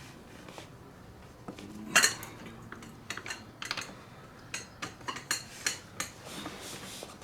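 Metal hand tools clinking and knocking against each other and the motorcycle's metal parts while the rear shock bolts are worked loose: irregular sharp clinks, with one louder knock about two seconds in and a run of clinks in the second half.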